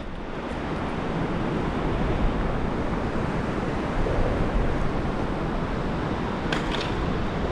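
Steady rushing wind noise on the microphone, with a few faint clicks near the end.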